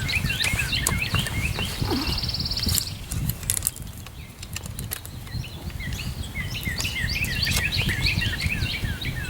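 A small bird chirping in a long run of short, quick, falling notes, several a second, with a brief buzzy trill about two seconds in. Scattered sharp clicks and a low rumble from handling run underneath.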